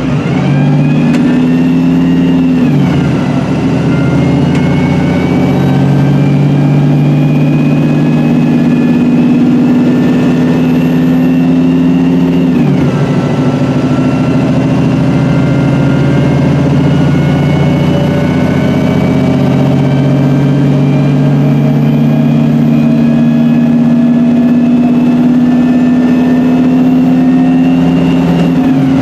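Cummins diesel engine of a re-engined MAN 18.240LF single-deck bus pulling hard, heard from inside the saloon. Its note climbs steadily and drops sharply at each upshift of the Voith four-speed automatic gearbox: a few seconds in, about halfway through, and again at the end.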